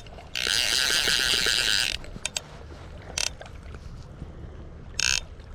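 Hardy Marquis Salmon No.1 click-and-pawl fly reel buzzing as a hooked steelhead pulls line off it: one loud run of about a second and a half, then a few short bursts.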